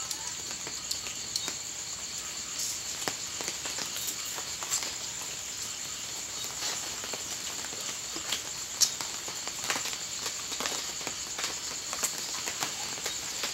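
Steady high chirring of night insects, with scattered light clicks and taps of chopsticks against bowls and the pot.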